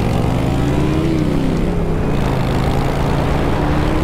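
Kawasaki Ninja sport bike's engine pulling away from a stop: the revs climb, drop at an upshift about a second in, then climb again. Wind rush runs underneath.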